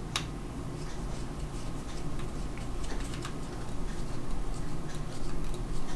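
Small screwdriver driving a tiny screw into a plastic model part, giving a run of light, irregular clicks and scrapes.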